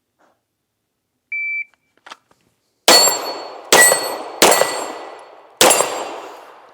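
PACT Club III shot timer gives its short start beep, then four gunshots from a semi-automatic firearm follow over about three seconds, each trailing off in a slowly fading ring.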